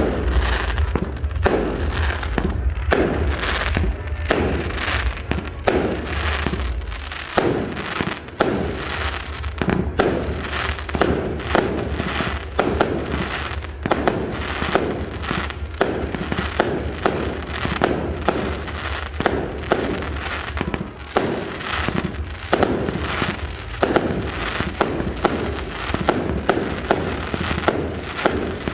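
Fireworks display: a dense, unbroken run of bangs, several a second.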